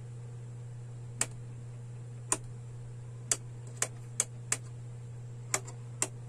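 Two wall rocker switches of a three-way lighting circuit being flipped on and off by hand: eight sharp, irregularly spaced clicks over a steady low hum.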